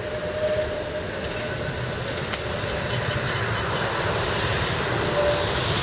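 A Tatra tram passes on snow-covered tracks with a steady rumble and a quick run of clicks about three seconds in.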